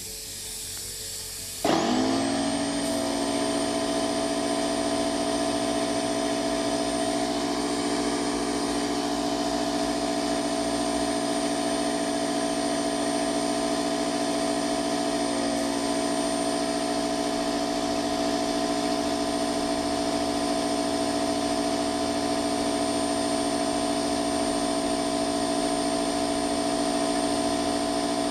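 A short hiss, then the Parkside PKZ 180 C5 tankless piston compressor starts up about two seconds in and runs loud and steady at a constant pitch, pumping into a car tyre that it fails to inflate.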